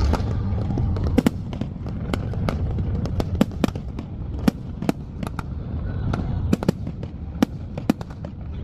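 Fireworks display: a rapid, irregular string of sharp bangs and crackles over a low rumble, sped up to double speed.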